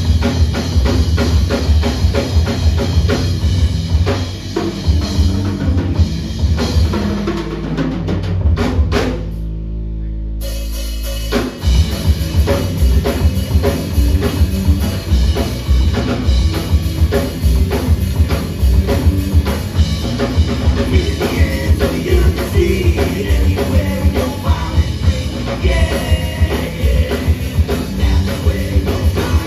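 Live band playing an instrumental passage: drum kit driving along with bass and electric guitar. About eight seconds in the drums drop out, leaving a held low bass note for a few seconds, and the full band comes back in at around eleven seconds.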